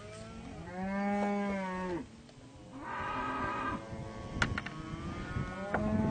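Cattle mooing: three drawn-out calls whose pitch arches up and down. The loudest comes about a second in, another just before the middle, and a shorter one near the end, with a couple of sharp clicks in between.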